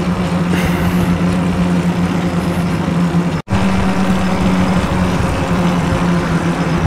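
Strong, gusty headwind rushing over the microphone of a moving electric bike, with a steady low hum underneath. The sound drops out for an instant about halfway through.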